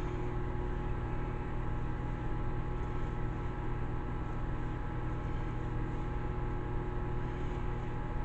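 Steady droning hum of a running appliance or fan, holding several constant tones with no change in pitch or level.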